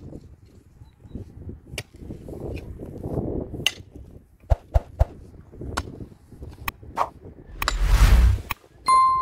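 A metal digging tool working soil and stones: scattered sharp knocks and rough scrapes, a loud heavy scrape about eight seconds in, and a ringing metal clink near the end.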